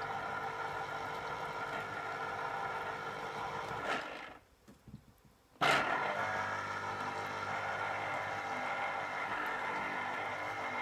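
Electric citrus juicer motor running steadily as an orange half is pressed onto the spinning reamer. It stops about four seconds in, when the pressure comes off, and starts again about a second and a half later.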